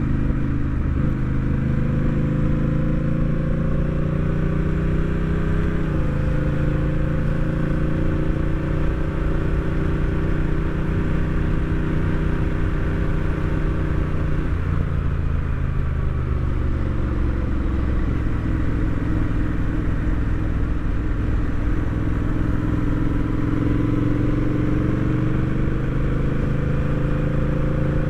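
Honda Rebel 1100 DCT's parallel-twin engine running under way. Its pitch climbs through the first six seconds, drops suddenly as the automatic gearbox shifts up, falls again about halfway through as the bike slows, then climbs once more toward the end.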